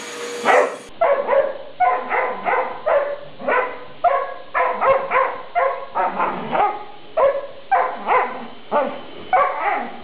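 A dog barking over and over, about two barks a second, at a vacuum cleaner's moving floor head.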